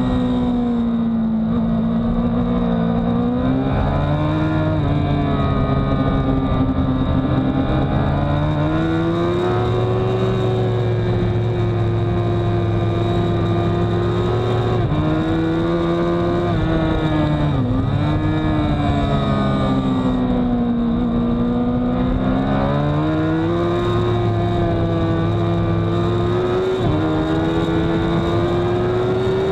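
Honda CBR1000RR inline-four engine at race speed, heard onboard. Its note falls, then climbs in long sweeps as the bike drives out of corners, with a few brief sharp dips as it changes gear.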